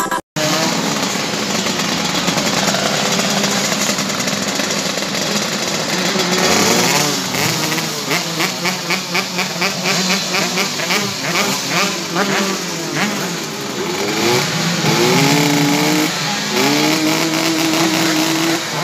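125cc two-stroke underbone race motorcycles revving at the start: quick, repeated throttle blips through the middle, then the engines revved up and held at high revs near the end.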